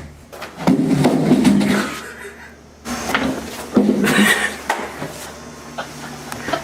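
A string of knocks and clattering thuds at a door, mixed with indistinct voices.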